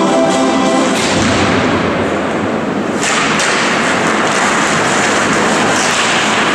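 Ice hockey play on a rink: a steady scraping hiss of skates on ice with a few sharp clacks of sticks and puck at a faceoff, growing louder and brighter about three seconds in. Music stops about a second in.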